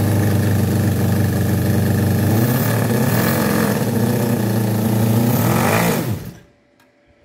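Cison FL4-175 four-cylinder flathead model engine running on nitro-methanol glow fuel on its first start, its speed rising and falling a little midway. About six seconds in it dies, the pitch falling as it spins down and stops.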